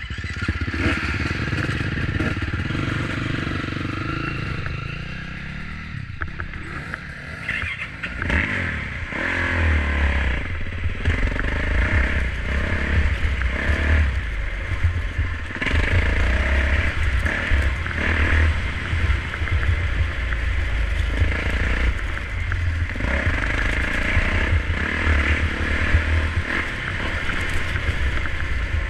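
Off-road motorcycle engine running as it is ridden along a sandy single-track trail, easing off briefly about six seconds in and then pulling steadily again.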